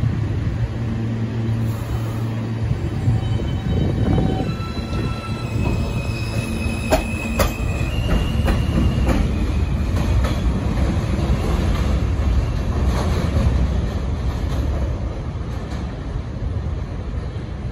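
R160A-2 subway train with Alstom propulsion pulling out of an elevated station and running away down the track, with a steady rumble. A series of high whining tones sounds in the first half, and a few sharp clicks about seven seconds in. The sound eases off slightly near the end as the train recedes.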